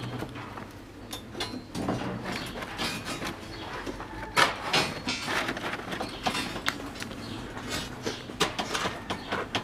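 Steel rebar clinking, knocking and scraping as the bars of a column cage are handled and tied with wire: irregular sharp metallic knocks, the loudest a pair about four and a half seconds in.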